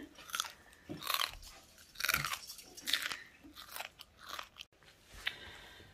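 Small kitchen knife slicing through a lime held in the hand: a series of short cutting strokes at uneven spacing.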